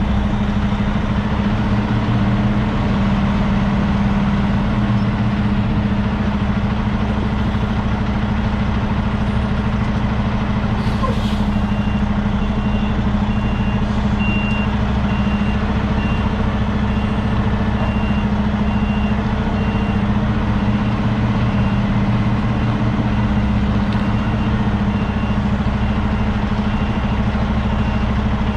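Semi-truck diesel engine running steadily. About eleven seconds in there is a brief air hiss, and from then on a faint high beep repeats at an even pace.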